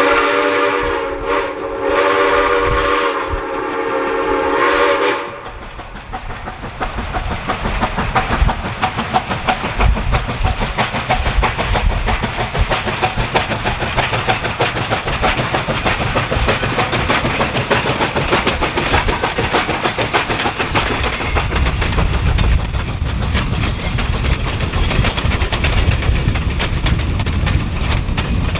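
Railroad train whistle sounding one long chord of several notes, which stops about five seconds in; then the train rolls past with a fast, dense clatter of wheels on rail and a low rumble.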